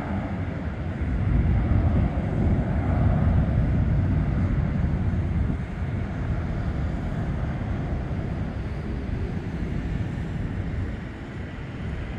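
Boeing 757-24A(PF) freighter's twin Pratt & Whitney PW2040 turbofans at climb power just after takeoff. A deep, noisy rumble swells about a second in, then slowly fades as the jet climbs away.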